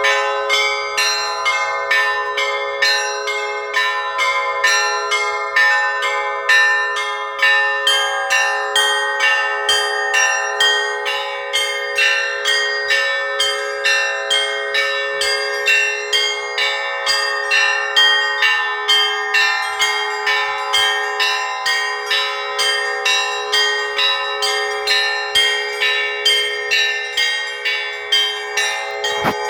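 Russian Orthodox church bells rung in a continuous peal (zvon): several bells struck in a fast, steady rhythm, a few strokes a second, their tones ringing on and overlapping.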